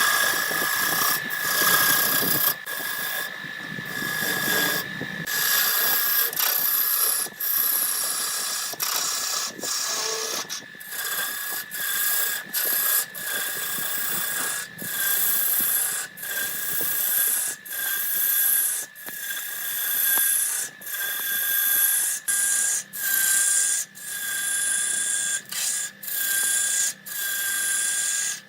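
Wood lathe running with a steady high whine while a turning tool cuts into the spinning wood in repeated hissing strokes, with a short break about every one and a half to two seconds.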